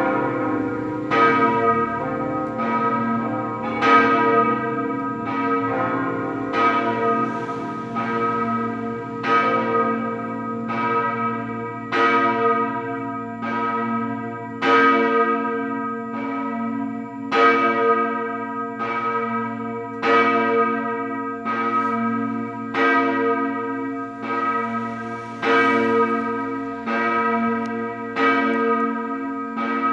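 Large cast-steel church bell tuned to B-flat (b°) swinging and ringing on its own, struck about once every 1.3 seconds in an even rhythm, each stroke still sounding when the next arrives.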